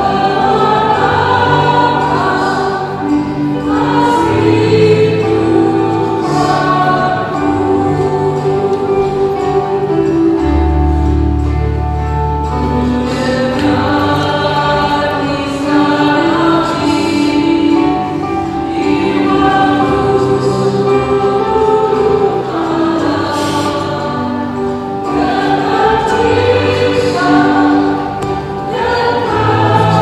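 Choir singing an Indonesian-language Catholic communion hymn, a slow melody with held notes.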